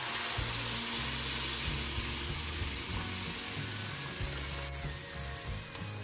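Tomato purée poured into hot butter in a pan, sizzling sharply as it hits and then slowly dying down. Soft background music plays underneath.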